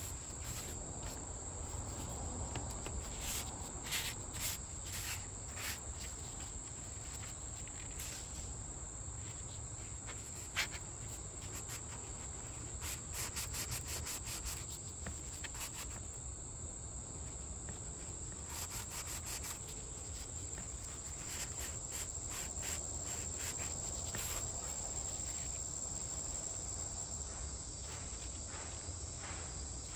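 Steady high-pitched chirring of insects, with trains of rapid fine ticks that come and go, over a low background rumble; one sharp click about ten seconds in.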